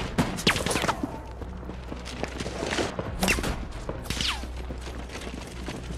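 Sporadic rifle shots and impacts from sniper fire in a film battle scene, with a few short falling whines.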